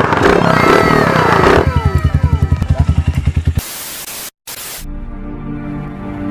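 Motorcycle engine running through an aftermarket canister muffler, its exhaust firing in rapid even pulses under music, then a burst of TV static that cuts out briefly, followed by intro music with steady tones.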